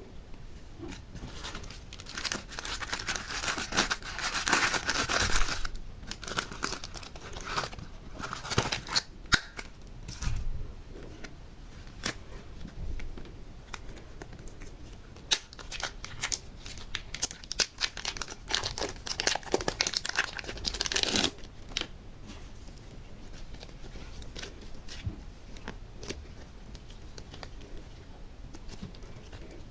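Crinkling and tearing sounds, as of material being crumpled and torn open, in two spells with sharp clicks among them: one from about two seconds in, one around the middle; quieter handling noise fills the rest.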